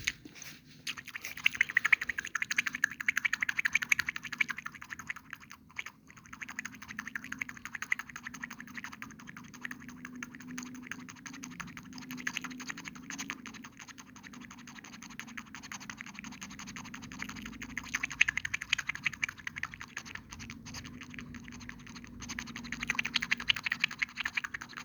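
Foam crackling and scratching close to the microphone: a dense, rapid run of fine crackles that swells louder in stretches, loudest near the start and twice near the end.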